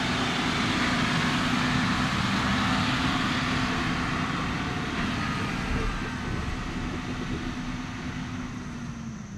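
John Deere tractor engine running steadily under load while pulling a manure tanker, gradually fading as the tractor drives away, with a slight drop in engine pitch near the end.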